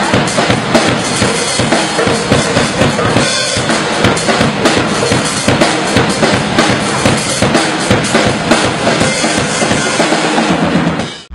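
A drum kit played live in a busy groove, bass drum, snare and cymbals hitting steadily, as part of a small band's music; it cuts off abruptly just before the end.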